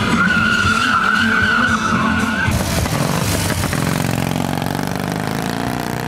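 A sport bike's tyre squealing on tarmac in a stunt, a high wavering screech for about two and a half seconds. Then, after a cut, an old sidecar motorcycle's engine running as it pulls away.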